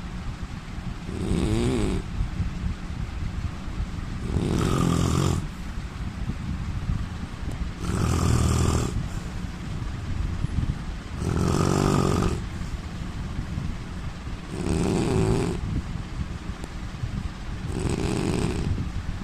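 A man snoring in a steady rhythm: six loud rasping snores, each about a second long, roughly one every three and a half seconds.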